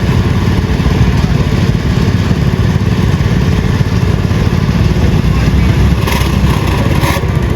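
A loud engine running steadily with a fast low rumble, and a brief burst of hiss about six seconds in.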